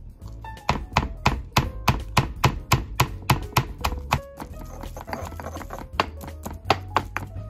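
Granite pestle pounding peeled garlic cloves in a granite mortar: sharp thuds about three a second for the first few seconds, then fewer strikes as the pestle grinds the garlic into a paste. Background music plays underneath.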